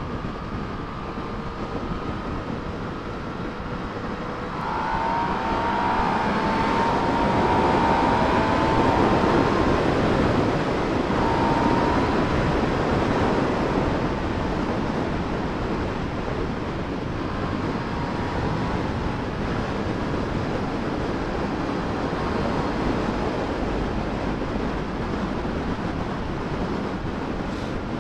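Yamaha motorcycle ridden at high speed, with heavy wind rush over the microphone. The engine note climbs from about five seconds in as the bike accelerates hard under full throttle, then settles into a steady high-speed cruise.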